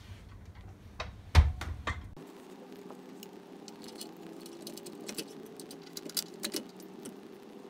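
Metal parts clicking and knocking as a toothed gear is handled and fitted onto the side frame of a Scott Bonnar cylinder mower. One sharper knock comes about a second and a half in. About two seconds in, the background changes suddenly to a steady hum, and lighter scattered clicks follow.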